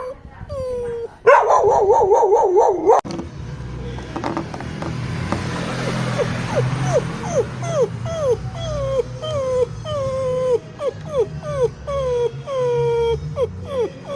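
Dog whimpering and crying: a wavering howl near the start, then a long run of short high whines, each falling in pitch, about two a second, over a low steady rumble.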